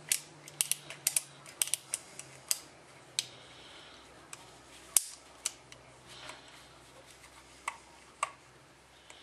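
Clicks of an HS single-action .22 revolver's action and cylinder being worked by hand: a quick run of clicks over the first few seconds, then scattered single clicks, the loudest about five seconds in. The action still has a fault: at quarter cock the cylinder stop does not drop all the way, so the cylinder won't turn freely.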